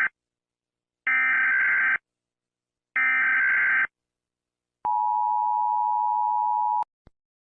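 Emergency Alert System tones: the end of one burst, then two warbling, screechy digital SAME header data bursts of about a second each, then the two-tone EAS attention signal (853 and 960 Hz) held for about two seconds. The attention signal cuts off abruptly, followed by a faint click.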